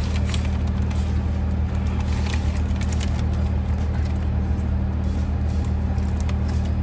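Steady low hum of a car heard from inside the cabin, with the engine running, and a few faint clicks and rustles over it.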